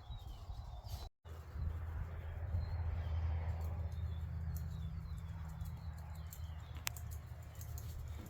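Repeated short, falling bird chirps over a steady low rumble, with a few sharp clicks; the sound cuts out briefly about a second in.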